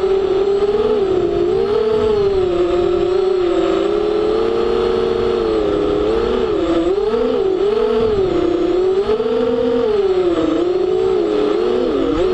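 FPV drone's electric motors and propellers whining, recorded by its onboard camera; the pitch wavers up and down constantly as the throttle changes, dipping sharply a few times, with a low rumble of air rushing past underneath.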